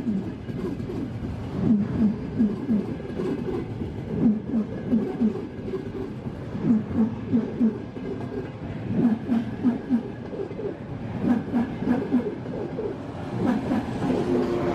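A train rolling slowly through the station, its wheels knocking over rail joints in clusters of three or four knocks about every two seconds as each pair of bogies passes. A steadier hum builds near the end.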